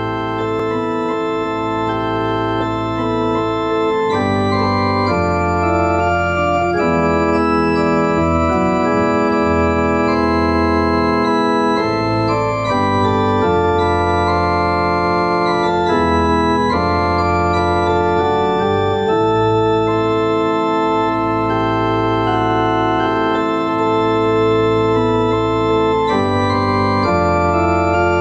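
Church organ playing slow, held chords that change every second or two over a deep, sustained bass line.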